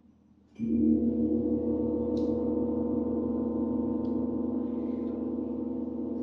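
A large hanging gong is struck once with a mallet about half a second in. It then rings on with several steady overlapping tones, fading slowly.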